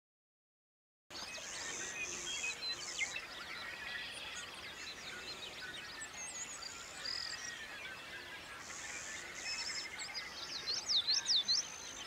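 Dawn chorus of many birds singing and calling at once, starting about a second in. Near the end one bird gives a quick run of loud, sweeping up-and-down whistled notes.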